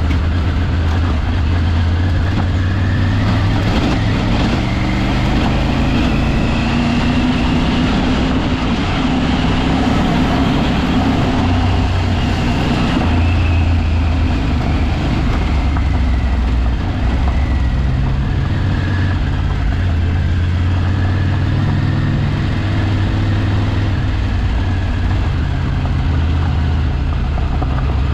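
Off-road vehicle's engine running steadily while driving, its pitch stepping up and down now and then, over a wash of road noise.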